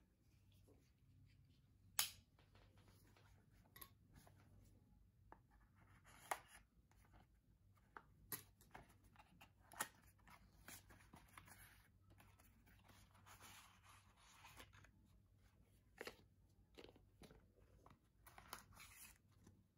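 Faint handling of small cardboard boxes: scattered clicks and taps of card against card as a sleeve and inner tray are slid apart, with the sharpest click about two seconds in. Soft rustling of packaging comes in bursts near the middle and again near the end.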